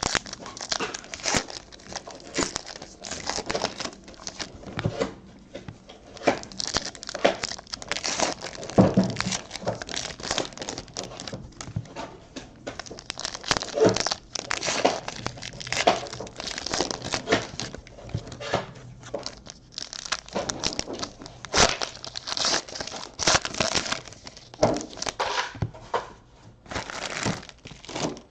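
2019 Panini Donruss Baseball card packs being torn open by hand, their wrappers crinkling and crackling in irregular handfuls, with cards rustling against each other.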